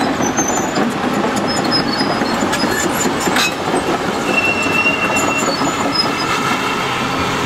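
Heavy demolition machinery clattering and grinding, with short high metal squeals scattered through and one longer squeal about halfway.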